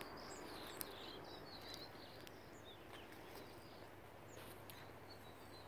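Faint outdoor background noise with a steady low hum. Small birds give scattered brief, high chirps over it.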